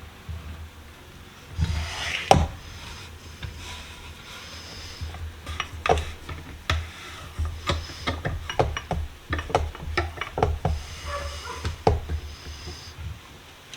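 Irregular knocks, clicks and rubbing of metal parts being handled and fitted while a clamp-on vise is reassembled, with a run of quick sharp clicks in the second half.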